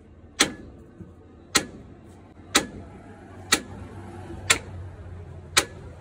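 A hammer striking metal in slow, regular blows, about one a second, six blows in all, each ringing briefly.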